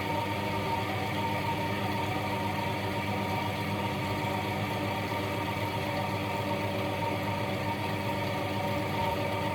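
A steady motor hum made of several held tones, unchanging.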